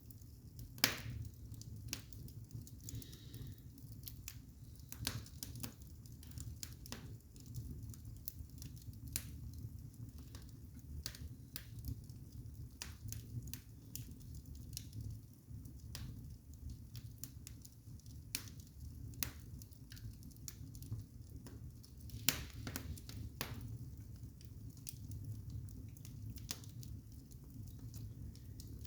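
Campfire burning, the wood crackling with irregular sharp pops over a steady low rumble; the loudest pops come about a second in and about 22 seconds in.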